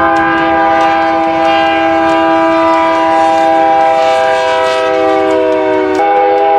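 Union Pacific diesel freight locomotive's air horn holding one long, loud chord. About six seconds in it breaks off abruptly into a different horn chord from another train.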